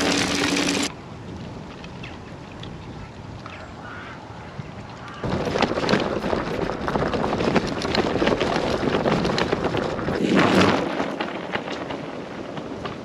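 Loaded e-bike's tyres rolling over a loose gravel track, with wind buffeting the microphone. The noise grows loud about five seconds in, swells briefly as the bike passes close near the end, then fades as it rides away.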